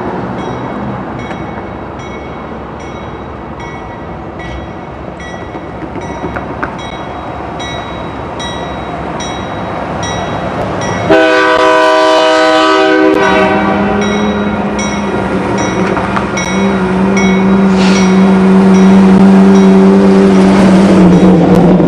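A diesel train rumbling past, with faint high dings repeating a little under twice a second. About halfway through, the locomotive's horn sounds a loud chord, and a strong steady drone follows that grows louder toward the end.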